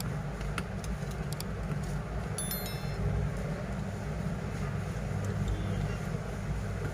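A steady low background rumble, with a few small tool clicks and a brief metallic clink about two and a half seconds in, while the screws are taken out of a smartphone's inner frame.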